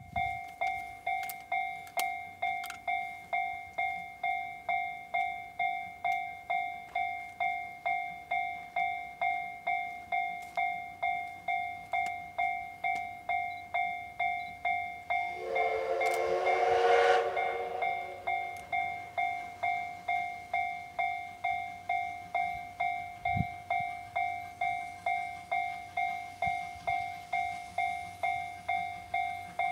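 Level-crossing warning bell ringing steadily, about one and a half strokes a second. About halfway through, the C58 steam locomotive's whistle sounds once for about three seconds, a loud chord of several notes over the bell.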